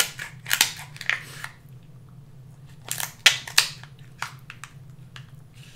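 Kitchen shears cutting through a king crab leg's hard shell, making a series of sharp cracks and snips with a lull of about a second and a half in the middle.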